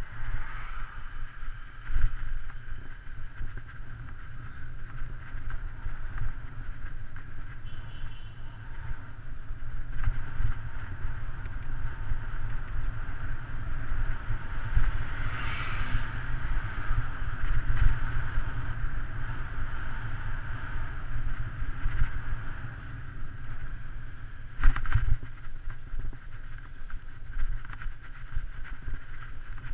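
Wind buffeting the microphone of a camera mounted on a road bicycle descending at speed, a steady low rumble with tyre and road noise. A few sharp knocks from the bike, and a louder whoosh about halfway through.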